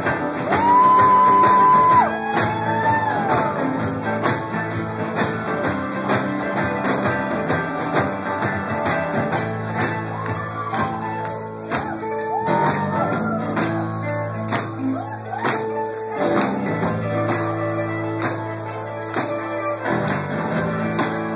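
Live folk-rock band playing on stage: guitars and drums with jingling percussion and voices singing along. A loud held high note comes in about half a second in and bends off about two seconds in.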